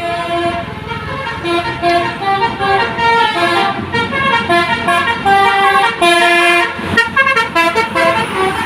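Indonesian 'telolet' bus horn, a multi-tone musical horn, tooting a quick tune of short notes that jump in pitch several times a second, with a longer held low note about six seconds in.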